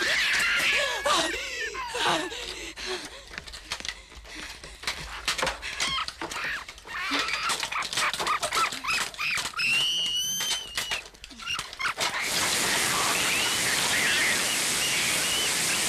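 Horror-film fight effects: a small monster's shrill squeals and shrieks among rapid knocks and thuds of a struggle. About twelve seconds in, a steady loud hiss starts, as a cloud of white spray or smoke fills the picture.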